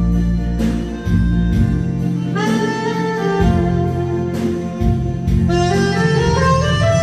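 Saxophone playing a slow, lyrical melody over an accompaniment with bass and a light beat; the line slides between notes and climbs step by step to a held note near the end.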